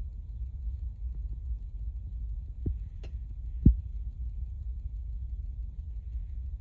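Low, steady rumble on the microphone with a few soft knocks, the loudest a little past halfway.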